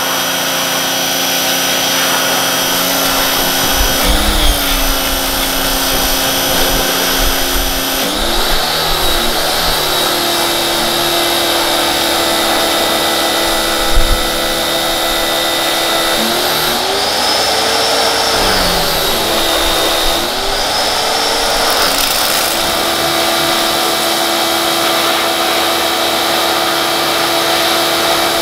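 HOMDOX 2000/2600 psi electric pressure washer running, its motor and pump giving a steady whine over the hiss of the spray hitting the side-by-side's bodywork. The whine's pitch dips and recovers about four times, and there is one brief thump about halfway through.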